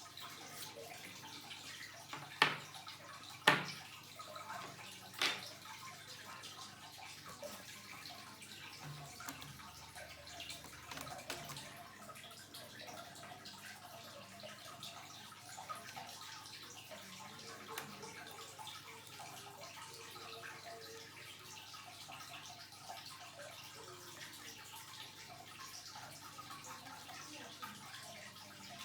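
Three sharp clicks in the first few seconds, about a second apart, over a faint steady hiss, with a few weaker ticks later on.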